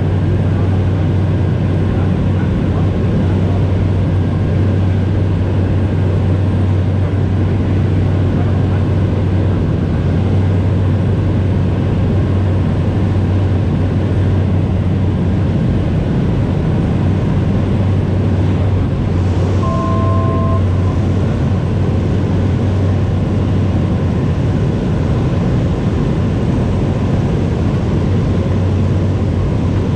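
Steady drone of a Cessna 208B Grand Caravan's single turboprop engine and propeller, heard in the cockpit. About two-thirds of the way through, a short beep of two tones together sounds for about a second.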